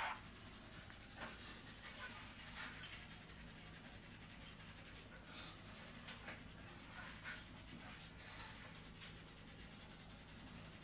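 Faint handling noise: a light click right at the start, then soft scattered rubs and rustles of gloved hands holding a plastic-wrapped smartphone, over a low steady hum.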